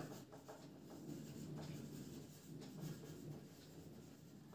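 Felt-tip marker writing on a whiteboard: faint scratching strokes in two spells, about a second in and again near three seconds.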